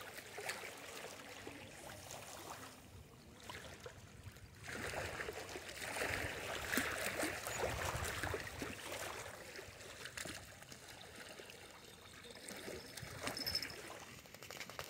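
Faint lapping water at the shore of a reservoir, with light clicks and rustles. The sound swells for a few seconds in the middle.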